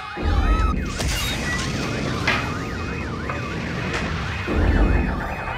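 Electronic siren wailing in a fast up-and-down sweep, several times a second, with deep low rumbles about half a second in and again near the end.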